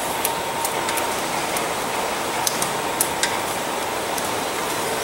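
Light clicks and taps of a rubber heater hose and its fittings being handled and pushed into place in an engine bay, about seven of them scattered through the first three and a half seconds, over a steady hiss of background noise.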